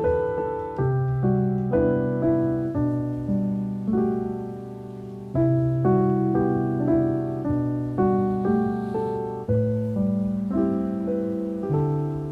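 Background piano music: soft notes and chords struck about twice a second, each left to ring and fade.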